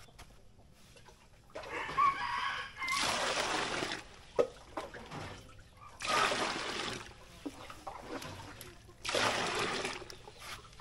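A rooster crows once about two seconds in. Water then sloshes in three bursts of about a second each, spaced about three seconds apart.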